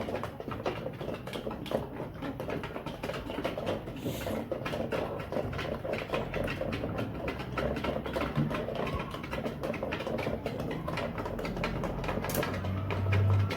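Light Columbian Brahma chickens in their pen, clucking low with many small scratching and pecking clicks.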